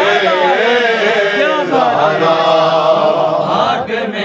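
A man chanting a long, drawn-out melodic line of a fazail devotional recitation, his pitch wavering and bending up and down, with a short break near the end.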